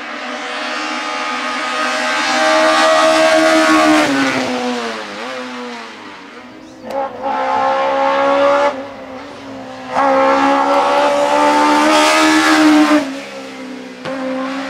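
Race-prepared small touring car engines at high revs on a hillclimb. The first note climbs steadily in pitch for about four seconds and then falls away. Two more loud, even stretches of high-revving engine follow, each ending abruptly.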